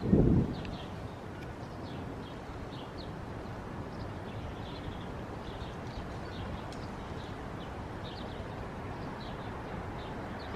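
Small birds chirping: many brief, faint high calls scattered throughout, over a steady low background rumble. A louder low sound fills the first half second.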